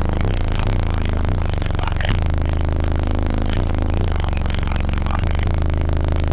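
Rap beat played loud through Resilient Sounds Platinum 15-inch car subwoofers, heard inside the vehicle's cabin; very deep bass dominates, with bass notes repeatedly sliding down in pitch.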